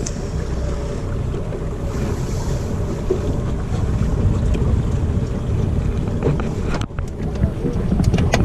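A small boat's motor running steadily under wind buffeting the microphone, with a few light knocks near the end.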